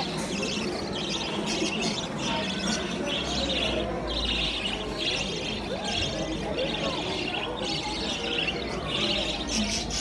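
A flock of budgerigars chattering: a continuous stream of warbles and chirps, with high scratchy calls recurring roughly once a second.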